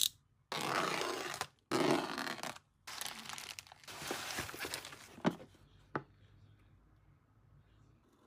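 Four bursts of crinkling and tearing, like something being handled, crushed or torn by hand, followed by two sharp clicks.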